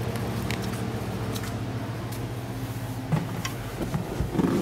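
A steady low hum. In the last second or so come a few light knocks and handling sounds.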